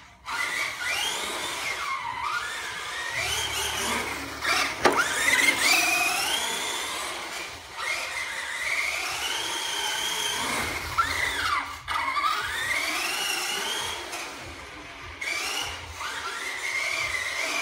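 Electric motor and gears of an ECX Torment 1/10 RC stadium truck whining, the pitch rising and falling again and again as the throttle is worked while it drives around on concrete, with a couple of sharp knocks, the loudest about five seconds in.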